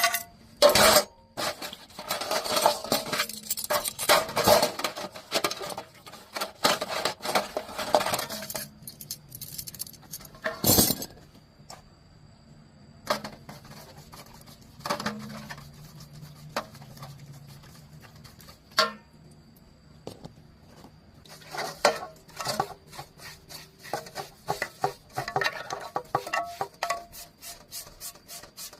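Metal tools and parts clinking and clattering as they are handled during a tractor repair, in two long busy spells with a few louder single knocks between them.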